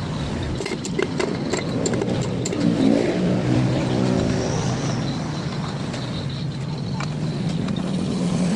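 An engine running, its pitch rising and then falling back about three seconds in, with a few light metal clinks during the first two seconds.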